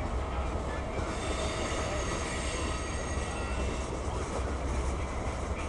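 Freight train of tank cars rolling past: a steady rumble of wheels on rail, with a thin high wheel squeal from about a second in until about four seconds in.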